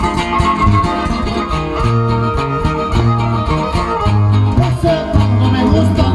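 Trio huasteco playing an instrumental passage: a violin melody over strummed jarana huasteca and huapanguera, with the huapanguera giving a steady bass pulse.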